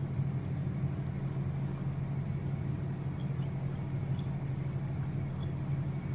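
Egg biscuit pitha frying in a pan of hot oil: a steady low rumble under faint sizzling, with a few small pops from the oil.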